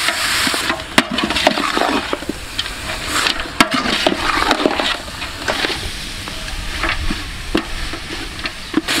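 Metal spatula stirring and scraping chunks of duck meat and curry paste around a large metal pot, a continuous wet shuffling scrape with a few sharp clanks of the spatula against the pot, the clearest about a second in and again a few seconds later.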